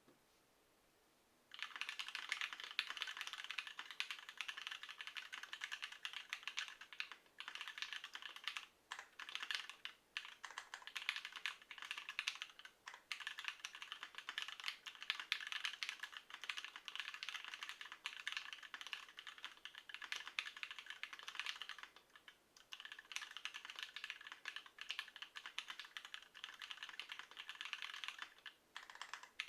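Tofu60 mechanical keyboard with stock JWICK Yellow linear switches on a 5 mm acrylic plate with case foam, typed on quickly. A dense, steady run of keystrokes starts about a second and a half in and is broken by a few short pauses.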